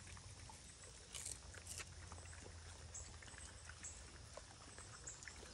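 Faint sounds of KuneKune pigs foraging, with soft scattered crunches and snuffles as their snouts work through feed on the dirt. Two slightly louder ones come about a second in and again just under two seconds in.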